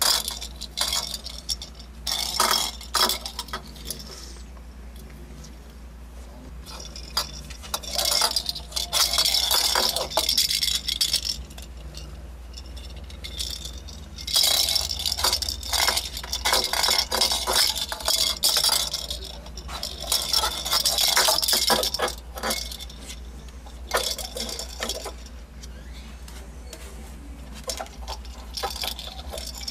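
A kitten playing with a small toy in a metal cage: bursts of light jingling and clinking, several times, with short quieter gaps between.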